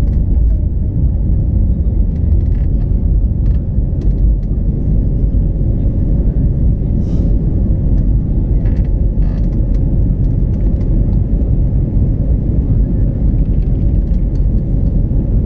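Jet airliner's cabin noise during the climb just after takeoff: a loud, steady low rumble of engines and airflow, heard inside the passenger cabin by a window over the wing.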